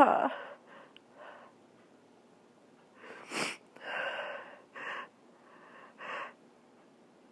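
A person sneezing at the very start, then breathing. A short, sharp nasal burst comes about three and a half seconds in, followed by three short breaths.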